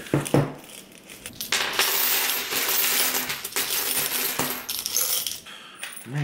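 A jar-load of mixed coins, quarters and pennies, pours out of a glass jar onto a wooden table in one continuous jingling rush lasting about three seconds. After that come scattered clinks as the loose coins are slid about on the tabletop.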